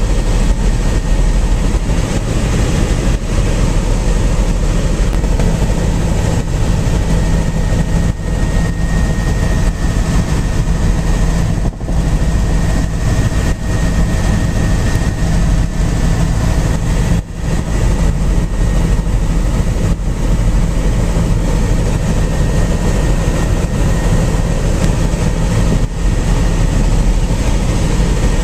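Helicopter cabin noise in flight: a loud, steady engine-and-rotor drone with a faint high whine over it.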